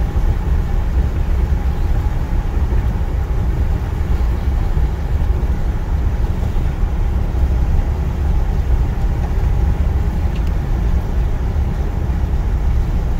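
A car driving along a highway at steady speed: a low, even rumble of engine and tyre noise.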